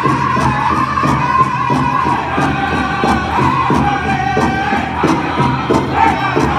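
Pow wow drum group singing high-pitched, sustained vocals over a big drum struck in a steady beat, the song for fancy shawl dancing.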